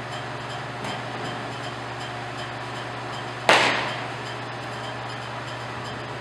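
One sharp smack of a softball about three and a half seconds in, echoing briefly around a large indoor training hall, over a steady low hum.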